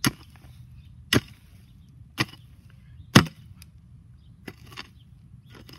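A mattock chopping into turf and soil: four sharp strikes about a second apart, the fourth the loudest, then a few lighter knocks near the end.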